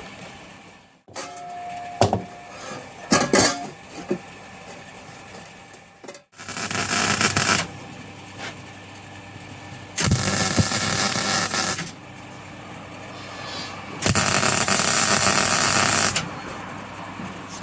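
Welding on a steel forge shell: three bursts of about two seconds each of steady crackling hiss with a hum underneath, preceded by a few clicks and knocks.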